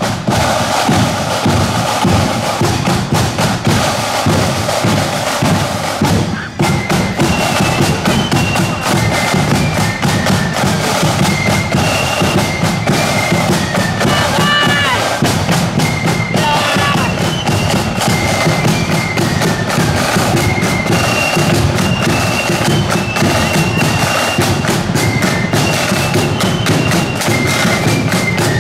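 Marching flute band playing a march: drums beat throughout, and after a brief break about six and a half seconds in the flutes come in with a high tune over the drums.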